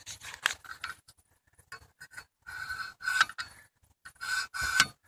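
Fine sharpening stone of a Wicked Edge guided knife sharpener scraping along a thin steel fillet-knife edge in several short strokes, with a few clicks before them. These are light test swipes over a marker-coated bevel to find the edge's sharpening angle.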